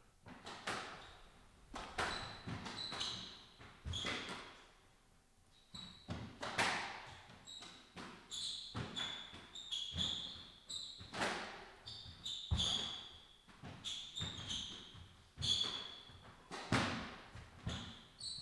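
Squash rally: the ball cracking off rackets and the court walls about once a second, echoing in the enclosed court, with short high squeaks of court shoes on the wooden floor between the shots.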